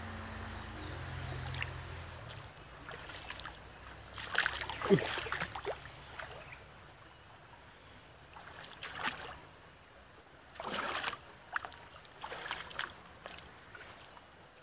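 Footsteps and brushing through riverside grass and shrubs, coming in several irregular rustling bursts.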